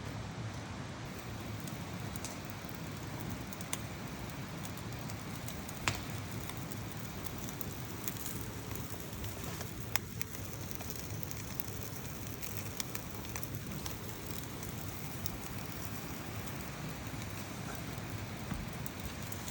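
Wood fire crackling: a steady hiss with scattered sharp pops, the loudest about six and ten seconds in.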